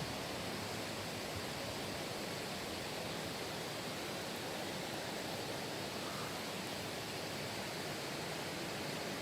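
Steady rush of a mountain valley stream's flowing water.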